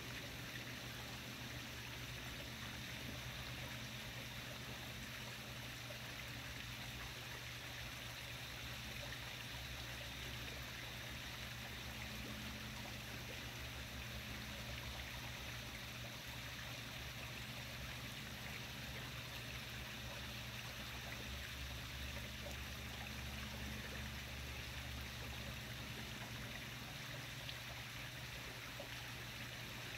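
Faint, steady background hiss with a constant low hum beneath it; no distinct sound stands out.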